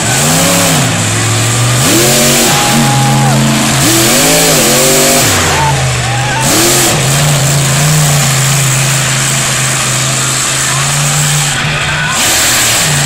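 Monster truck engine revving hard in repeated bursts, its pitch rising and falling over and over, then held at a steady high pitch for several seconds before another rev near the end.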